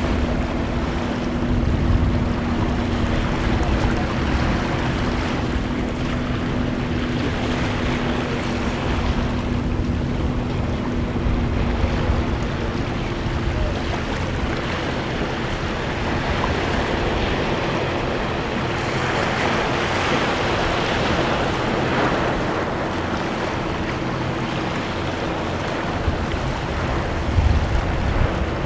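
Small waves washing and lapping over seaweed-covered shore rocks, swelling louder for a few seconds past the middle. Wind rumbles on the microphone now and then, under a steady motor hum.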